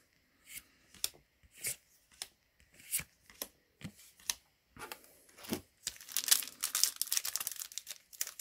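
Yu-Gi-Oh! trading cards being handled, with a run of short swishes and flicks as cards slide over one another. From about six seconds in comes a dense crinkling and tearing, typical of a foil booster pack wrapper being torn open.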